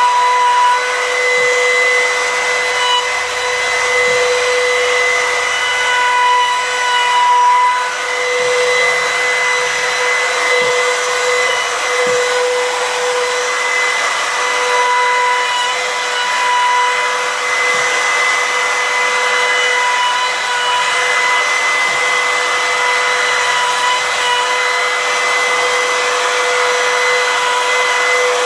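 Compact trim router running at full speed with a steady high whine, its bit planing the surface of a walnut slab as it is pushed along a homemade router sled to flatten it.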